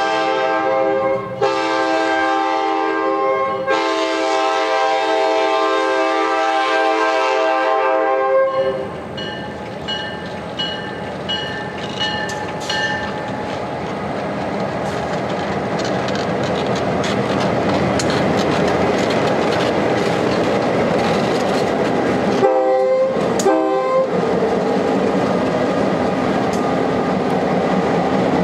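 Kansas City Southern F-unit locomotives sounding a multi-chime air horn in long blasts for about eight seconds, then the train passing close by: engine and wheel rumble with clickety-clack over the rail joints. A bell dings for a few seconds after the horn stops, and the horn sounds again briefly near the end.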